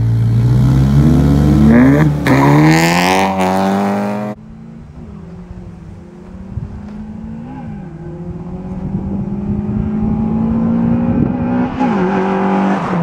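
A Honda Civic coupe's engine revs hard as it launches from the line, its pitch climbing with a drop for a gear shift about two seconds in. The sound cuts off suddenly about four seconds in and gives way to two racing cars heard from down the track, their engines growing steadily louder as they approach and pass close near the end.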